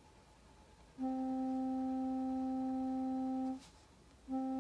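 Steady sine-wave tone near middle C from a frequency generator app, played through a speaker. It comes on about a second in, cuts off for under a second, and starts again near the end.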